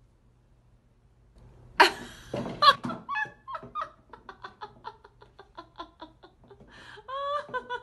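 A cat's voice: two loud short cries, then a run of short chirps, about three a second, that grow fainter, and a longer drawn-out call near the end.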